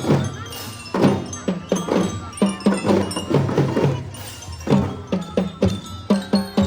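Children's marching drum band playing: a steady rhythm of drum strokes under a ringing, bell-like mallet melody.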